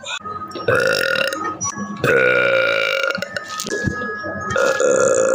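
A woman belching: three long, drawn-out burps one after another, the last starting near the end.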